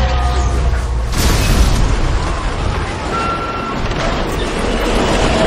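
An SUV crashes down onto its roof with a heavy impact about a second in, over a deep rumble. It then grinds and scrapes along the asphalt upside down, with short metallic squeals, as it slides.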